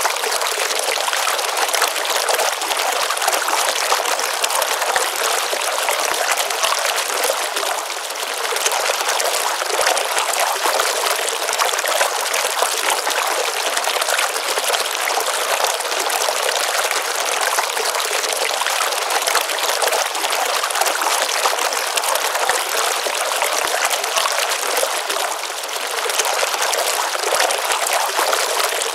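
Water of a pond stream running steadily: an even rushing with little deep sound, easing slightly twice.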